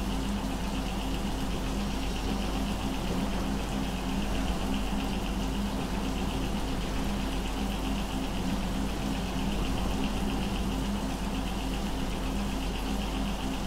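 A steady droning hum with a fast, even flutter and a thin higher whine above it, unchanging throughout.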